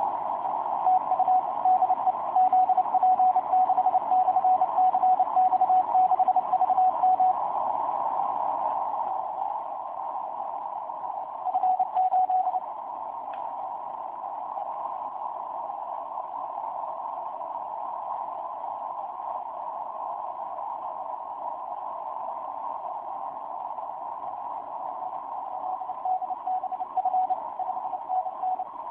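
Morse code signal on the 12-metre amateur band heard through a Yaesu HF transceiver: a single tone keyed on and off in quick bursts over steady receiver hiss heard through a narrow filter. It keys busily for the first seven seconds or so, briefly again about twelve seconds in, and near the end.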